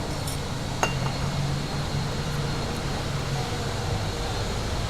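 Steady low background hum, with a single light clink about a second in.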